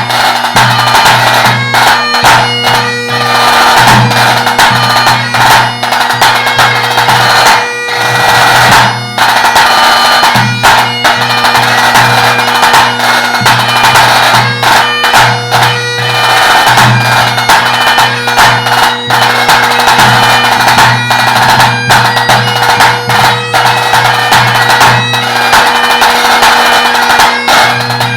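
Great Highland bagpipe playing a tune over its steady drones, accompanied by tenor drum strokes beating in rhythm with the melody.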